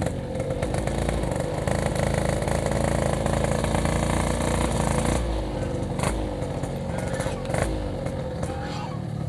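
Yamaha RX-King's two-stroke single-cylinder engine running while riding, a steady buzzing note that eases a little about five seconds in.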